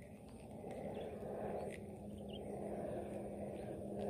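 Outdoor ambience dominated by a low rumble and a steady hum of a distant engine, with a few faint bird chirps.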